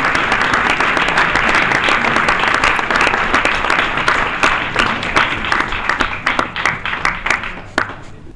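Audience applauding, dense at first, then thinning into scattered separate claps that die out just before the end.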